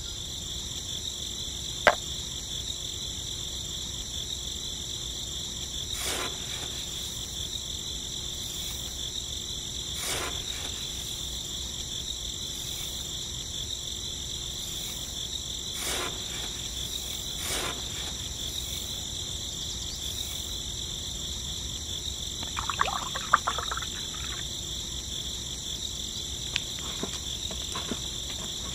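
Steady, high-pitched chorus of crickets and other insects running unbroken, with a few faint taps and a short burst of handling sounds about 23 seconds in.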